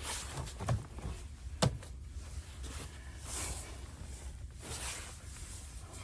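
Rustling and handling noises with a few light knocks and one sharp knock about a second and a half in, over a low steady rumble.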